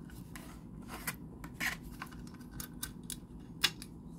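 Irregular clicks and clacks from a baseball-bat steering wheel lock being handled and locked, with the sharpest click about three and a half seconds in.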